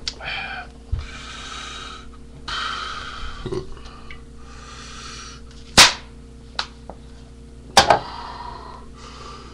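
Breathy hisses about a second long, three or four times, with a few sharp clicks or knocks, the loudest about six and eight seconds in.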